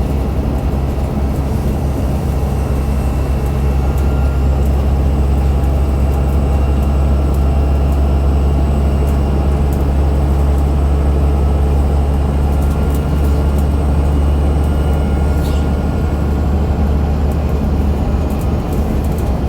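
Alexander Dennis Enviro500 MMC double-decker bus under way, its Cummins ISL8.9 diesel and ZF six-speed automatic running as a steady low drone, with a faint high whine over it that is the bus's odd axle sound.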